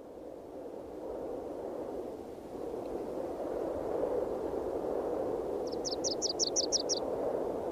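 A soft, even rush of ambient noise that grows gradually louder. About two-thirds through, a bird gives a short rapid trill of about nine high, falling chirps, around seven a second.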